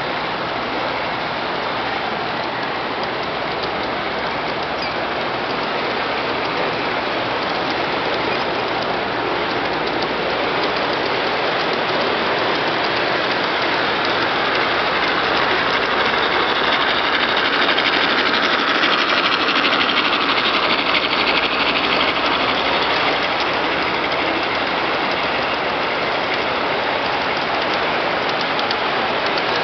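Large-scale garden-railway model trains running on brass track: a steady rolling rattle of wheels on rail that swells about halfway through as a freight train passes close by.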